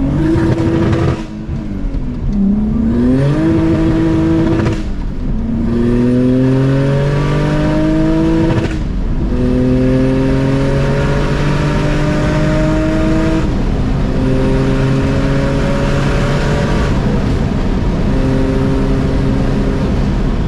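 Turbocharged BMW E30's M50 straight-six, with a 3-litre crank and a Precision turbo, at full throttle, its pitch rising steadily through each gear and dropping sharply at each of about five upshifts. Heard from inside the cabin with the window open a little.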